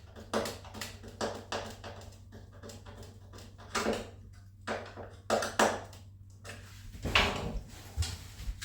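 Handling noises from assembling an RC biplane: irregular light knocks, clicks and rustles as parts are picked up and set down, the louder ones about four, five and a half and seven seconds in.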